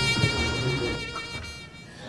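Music: one long held high note with vibrato, fading away near the end.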